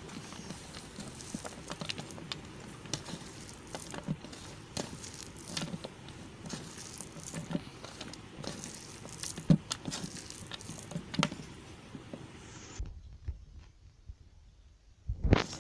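Soft soap being handled, with irregular crisp crackles and light taps. Near the end it drops almost to quiet for about two seconds, then a louder crunch.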